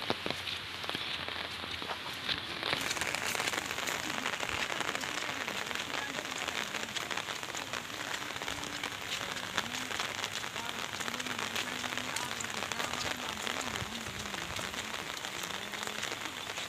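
Steady rain falling on wet ground and leaves, a dense patter of drops over a continuous hiss that grows stronger about three seconds in.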